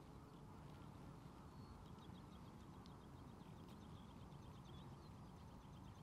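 Near silence: faint open-air background with a quiet, rapid series of short high chirps from a distant bird through the middle.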